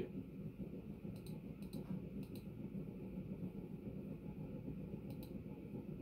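Vintage Berni ceiling fan, a Panama copy, running steadily among other ceiling fans, giving a low steady whir. A few faint sharp clicks come in pairs.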